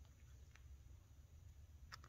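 Near silence: a low room hum with two faint short ticks, one about half a second in and one near the end.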